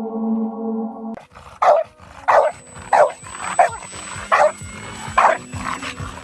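A dog barking six times in an uneven series, roughly one bark every second. Before it, a steady ambient music tone cuts off about a second in.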